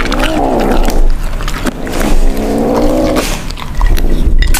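Kitten giving two drawn-out, rising-and-falling growling meows while eating meat, with small chewing and biting clicks between them.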